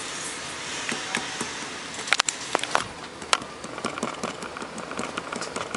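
Handling noise from the microphone test of the speaker: a steady hiss with scattered sharp clicks and knocks, the loudest cluster about two seconds in.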